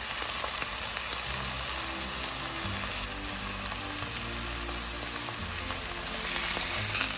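A thin, salted beef steak sizzling steadily in a hot frying pan as its first side sears.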